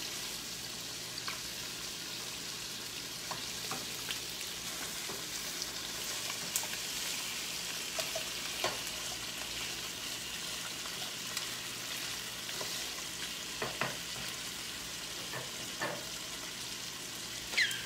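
Boneless chicken thighs searing in butter and olive oil in a skillet, sizzling steadily, with a few light clicks and scrapes of a wooden spatula in the pan.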